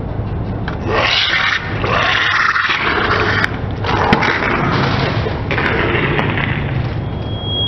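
Plastic shampoo bottles crackling and bursting under a slowly rolling car tyre, shampoo squirting out, with a few sharp cracks in the middle. The car's engine hums low and steady underneath. The crushing starts about a second in.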